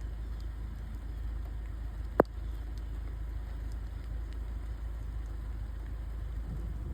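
Steady rain with a low rumble underneath and faint scattered drips, broken by one sharp tap about two seconds in.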